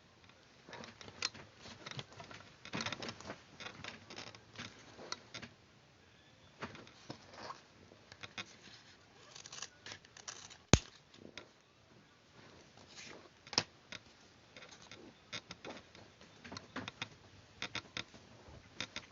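Paper handling and scissors cutting card stock: irregular rustles, snips and small clicks, with one sharp, loud click about eleven seconds in.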